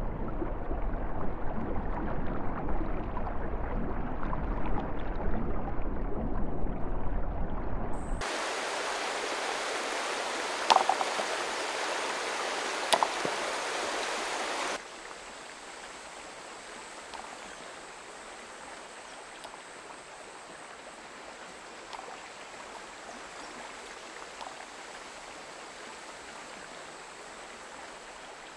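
Running stream water. First a muffled, low rushing, then about eight seconds in an abrupt cut to clear, bright running water with two sharp clicks. About fifteen seconds in it drops to a faint steady hiss with a thin high whine.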